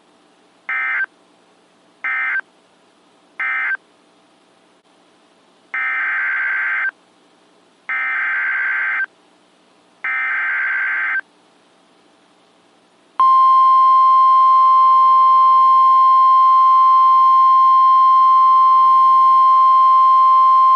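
NOAA Weather Radio EAS alert signals: three short data bursts, the end-of-message code closing the previous warning, then three longer SAME header data bursts announcing the next warning. These are followed, a little past halfway, by the long steady 1050 Hz warning alarm tone. Faint radio hiss lies between the bursts.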